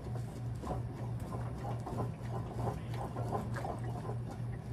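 Dodge Dakota's front suspension being pushed down and bounced by hand, giving only faint scattered light knocks and no squeak: the suspension has just been replaced. A steady low hum runs underneath.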